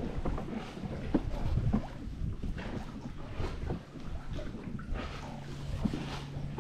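Small waves lapping and slapping against a kayak hull, with wind on the microphone and scattered small knocks. A low steady hum comes in about five seconds in.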